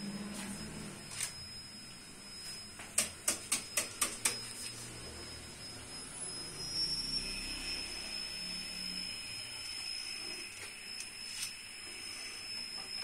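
Six sharp clicks in quick succession, about four a second, over a steady thin high hum. Near the end, a whisk begins beating yogurt in a steel bowl with rapid light ticking.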